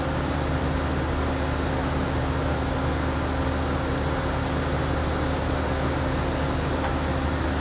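Steady drone of a homemade drum forge running with its air blower: a constant low hum under an even rushing noise, with no hammer blows or knocks.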